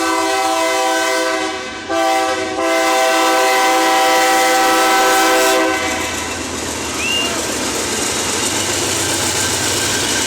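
Ferromex locomotive's air horn sounding as a salute, a long blast with a brief break near two seconds, stopping a little past halfway. Then the train's rolling rumble and wheel noise as it passes.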